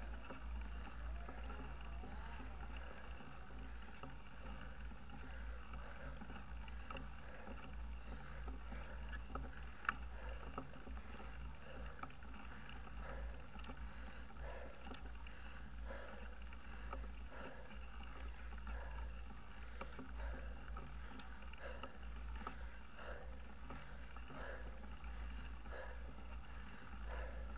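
Steady low rumble from riding a mountain bike along a paved road, heard on a bike-mounted camera microphone, with light rattling clicks from the bike and one sharper click about ten seconds in.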